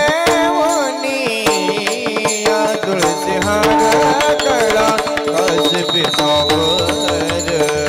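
Indian devotional abhang music: a voice draws out an ornamented, wordless melodic line over steady held accompanying tones and hand-drum strokes, with a deeper drum beat joining about three seconds in.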